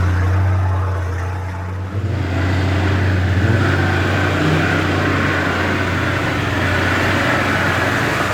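Mitsubishi Montero turbodiesel engine running while driving a trail, easing off briefly about two seconds in, then picking up and holding a steady note.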